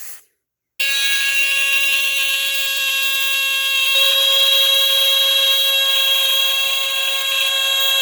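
A 1970s squealer-horn smoke detector going into alarm under a canned-smoke test. It starts suddenly about a second in with one loud, steady, high-pitched squeal rich in overtones, not pulsed. Its pitch shifts slightly about four seconds in.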